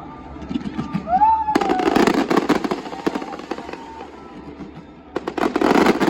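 Aerial fireworks going off in rapid crackling volleys, one starting about one and a half seconds in and another near the end. A short rising-and-falling whistle comes just before the first volley.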